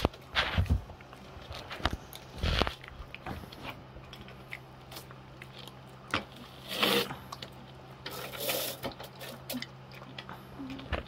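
A Shih Tzu crunching and chewing a dried pig-ear slice, in irregular bursts with pauses between them, over a faint steady low hum.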